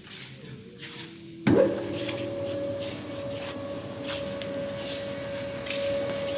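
High shear granulator's mixing motor switched on about one and a half seconds in: a sudden start, its hum rising quickly in pitch to a steady whine as the blades in the stainless-steel bowl come up to speed.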